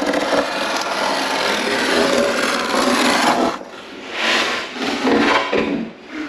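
Continuous rubbing and scraping against fiberglass in a cramped space for about three and a half seconds, followed by a few shorter scrapes as a fiberglass floor panel is shifted against the hull furniture.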